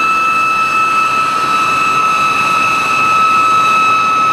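Sound-fitted model of the GT3 gas turbine locomotive playing its gas turbine sound through its onboard speaker: a steady high whine over a rushing hiss, holding one pitch throughout.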